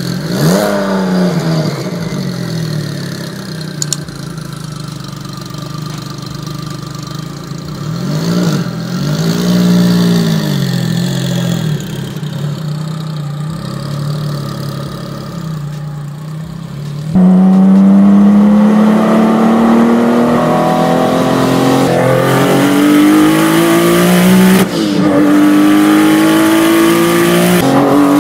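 Sports car engine revved twice while it pulls away slowly, then, about halfway through, accelerating hard at full throttle with a rising engine note and two quick upshifts near the end.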